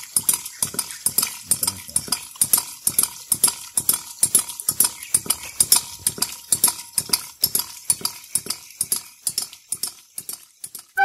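Homemade hydraulic ram pump's spring-loaded waste valve clacking shut over and over, about three times a second, each stroke the water-hammer pulse of the pump cycling by itself. It fades out near the end.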